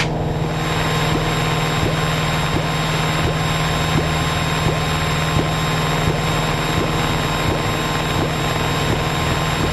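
Piper PA-28's piston engine and propeller droning steadily in flight, heard inside the cockpit.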